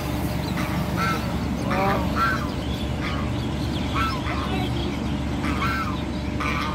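Ducks quacking again and again in short calls, over a steady low rumble.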